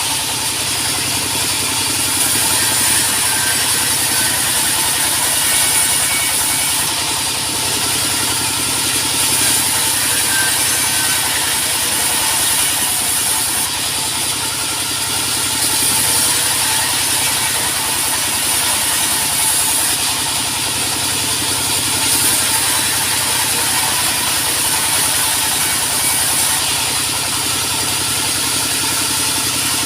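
Sawmill machinery running steadily: a continuous mechanical drone, with a high hiss that swells and fades every few seconds.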